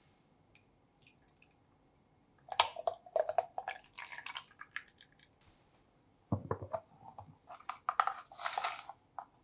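Heavy cream pouring from a paper carton into a glass bowl, splashing for about two and a half seconds. A dull knock follows about six seconds in, then the rattle of a plastic sugar container being handled and tilted near the end.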